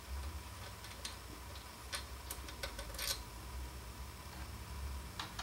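Several light, irregular clicks of small Phillips screws and a screwdriver being handled while screws are taken out of an opened hard drive, with a low steady hum underneath.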